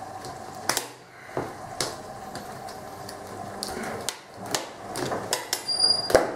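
Plastic lid and tamper-seal strip of a large chocolate-hazelnut spread tub being pried and torn open: scattered plastic clicks and crackles, with a short high squeak near the end.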